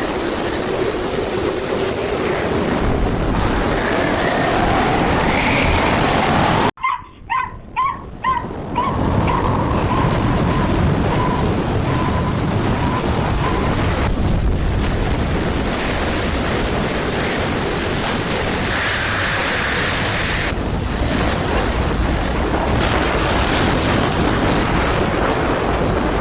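Storm wind buffeting the microphone in a steady, loud rush. About seven seconds in the rush drops out briefly, and a run of short, high-pitched yips follows and fades away over several seconds.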